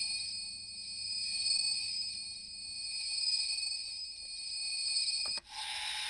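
Electronic sound effect from a CSM V Buckle toy belt's built-in speaker, triggered by its sound-effect button: a high ringing tone that swells and fades about every one and a half seconds. About five and a half seconds in it cuts off abruptly and a brighter hissing effect begins.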